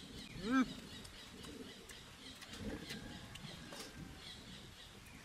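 A man's short hum of enjoyment, a closed-mouth "mmm" rising then falling in pitch, about half a second in, as he chews a mouthful of food. Faint bird chirps and small chewing clicks sound in the background.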